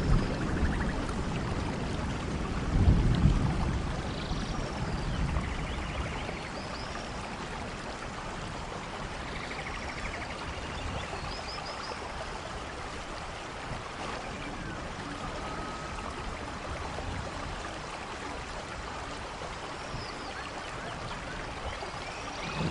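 Steady rain falling on rainforest foliage, with a low roll of thunder that peaks about three seconds in and dies away by six seconds. Scattered short chirps sound over the rain.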